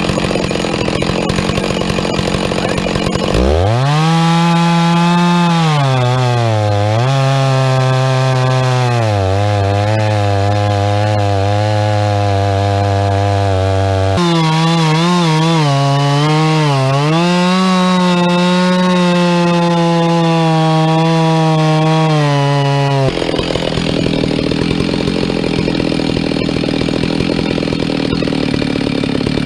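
Gas chainsaw on an Alaskan chainsaw mill ripping a maple log at full throttle. Its engine note climbs sharply about three seconds in, then holds high with repeated dips in pitch as the chain loads down in the cut. The note changes abruptly midway and gives way to a loud rushing noise near the end.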